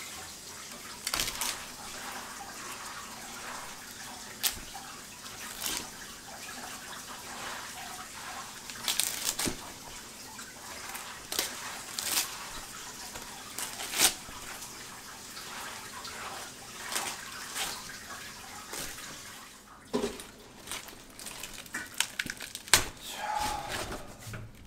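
Water running steadily from a tap while something is washed by hand under it, with irregular splashes and knocks.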